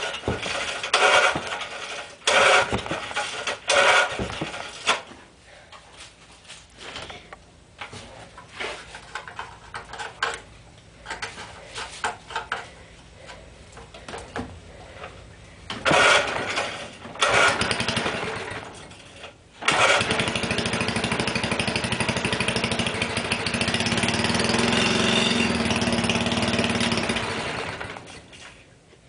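Small single-cylinder 2 hp tiller engine being pull-started cold. Short sputtering bursts come with the pulls in the first few seconds and again after about 16 s. It catches about 20 s in, runs steadily for about eight seconds, then dies out near the end, still not running right after a carburetor rebuild.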